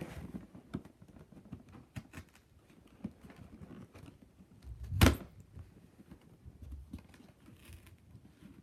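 Handling of a cardboard game box being pried open: scattered small taps, scrapes and rustles, with one louder knock about five seconds in.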